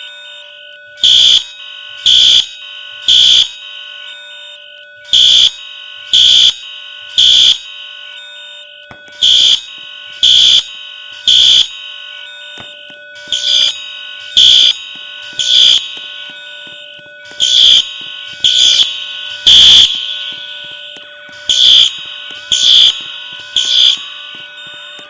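Fire alarm sounding in the temporal-three evacuation pattern: three short, loud, high beeps about a second apart, then a pause, the cycle repeating every four seconds or so.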